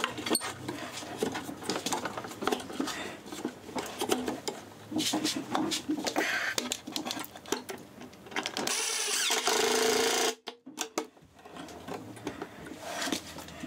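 Clicks and knocks of a plastic clamp and parts being handled, then a Ryobi cordless drill/driver runs for about a second and a half, driving a screw to fit a drawer slide, and stops abruptly.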